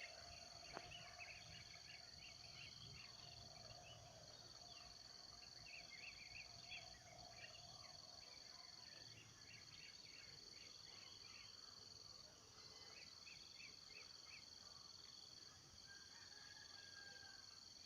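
Faint steady insect chorus with a high, even drone, over which a small grassland bird gives several runs of short, rapid, high chirping notes.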